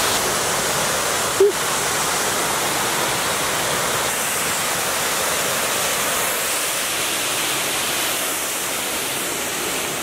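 Waterfall and creek water rushing in a steady roar, with one short sharp sound about a second and a half in.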